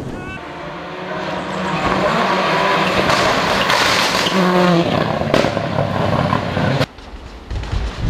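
Rally car engine revving hard through a loose dirt corner, its pitch climbing and falling through gear changes, over a hiss of thrown gravel. The sound drops away suddenly about seven seconds in, then engine noise builds again.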